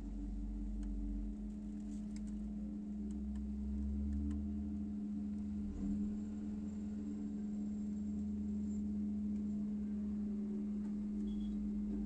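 Diesel engine of a garbage truck running steadily, an even low hum over a rumble.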